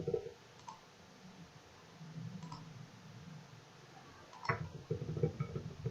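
Computer mouse clicking a few times, spaced apart, over faint room noise.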